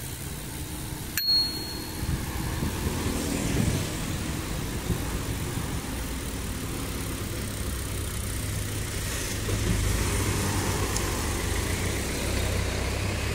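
A bicycle bell rung once about a second in, a single short bright ding, over a steady low rumble of wind and road traffic.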